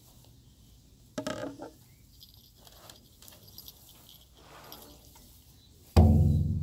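Mostly quiet, with a brief rustle and clatter of handling about a second in. Near the end comes one hard stroke on a large hide frame drum: a deep boom that rings on and slowly fades.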